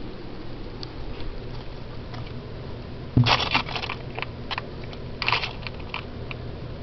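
A bump about three seconds in, then two short bursts of crisp crackling with scattered single clicks, typical of handling noise close to the microphone.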